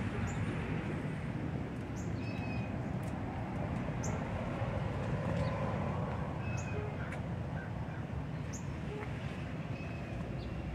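Birds calling with short, sharp high chirps every second or two, over a steady low outdoor rumble.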